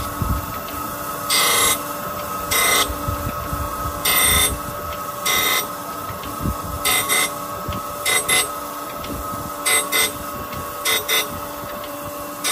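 Okamoto ACCUGAR 124N hydraulic surface grinder running: a steady hum from the spindle and hydraulic drive, broken by short bursts of grinding noise about every second or so, several in quick pairs, as the reciprocating table carries the work under the wheel.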